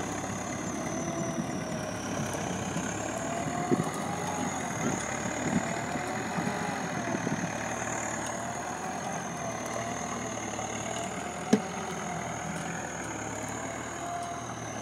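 Massey Ferguson tractor's diesel engine running steadily as it pulls a loaded cassava trailer over hard, dry ground. A high tone wavers slightly in pitch above the engine, and there is a single sharp click about eleven and a half seconds in.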